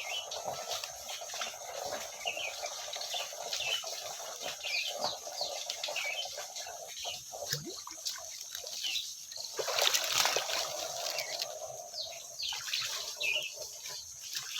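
Water splashing and trickling, with birds chirping throughout; a louder splash about ten seconds in.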